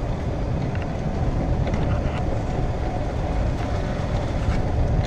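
Golf cart driving along: a steady low rumble of motor and tyres, with a few faint rattles.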